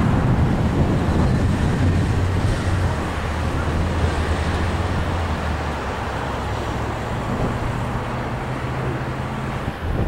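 Dash 8 turboprop airliner on approach: a steady, low propeller drone under wind and traffic noise. The pitch of the drone shifts about two-thirds of the way through.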